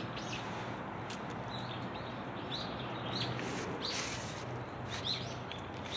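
Small birds chirping: a string of short, high chirps, several in some seconds, over steady outdoor background noise.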